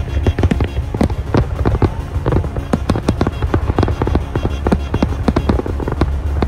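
Fireworks display: many shells and crackling effects going off in rapid, overlapping succession over a low rumble, with music underneath.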